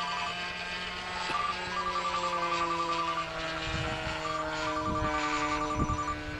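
A mobile phone ringtone beeping in repeated groups of short trills, over the steady drone of a model airplane's two-stroke O.S. .61 FX glow engine in flight, its pitch slowly falling. A few low thumps come in the second half.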